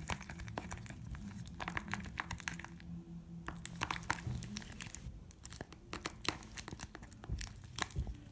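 Homemade face-mask-and-salt slime being stretched and pulled apart by hand, making irregular crackling, tearing and clicking sounds. The slime is stiff.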